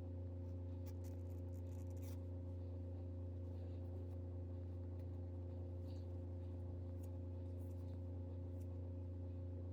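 A steady low hum with a few faint clicks, most of them between one and two seconds in.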